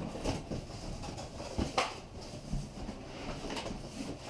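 Rummaging below a counter: irregular knocks and clicks with soft rustling as small boxes of fishing hooks are handled and lifted out, the sharpest knock a little under two seconds in.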